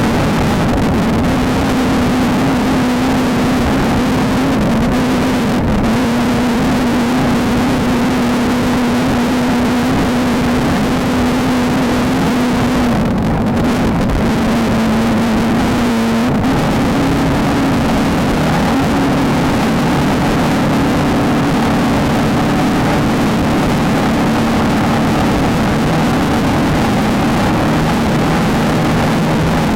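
Off-road race car's engine running hard at steady high revs under a constant rush of noise. About halfway through the revs dip briefly, then pick back up and hold.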